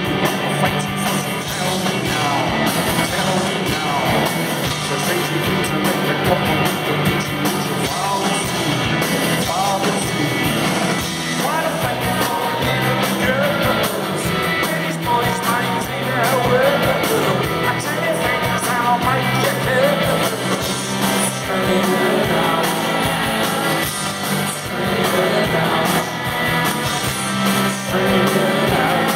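Live rock band with electric guitar, bass guitar and drums playing, with vocals over it, heard from the audience through the hall's PA.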